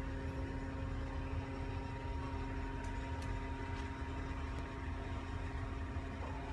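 Steady machine hum: a low rumble with a constant tone over it, unchanging throughout, with a few faint clicks near the middle.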